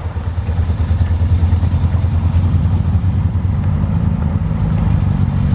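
Vintage sedan's engine running with a steady, deep rumble as it drives slowly past, swelling in the first second.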